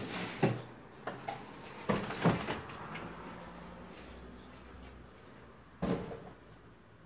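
A door being opened and shut: a run of knocks and clunks in the first couple of seconds, then one more clunk near the end.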